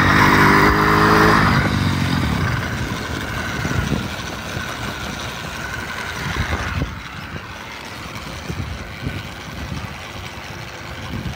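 Motorized bicycle's small engine running under throttle, loudest in the first couple of seconds, then easing off and falling quieter about seven seconds in.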